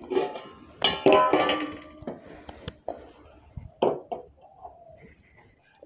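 Steel cooking pot clanking and ringing as it is handled and set onto a gas stove's burner: loudest about a second in, with another sharp knock near four seconds.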